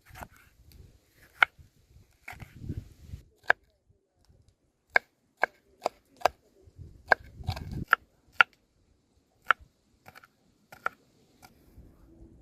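Knife chopping food on a cutting board: single sharp strikes at an uneven pace with pauses between them, and soft handling rustles in between.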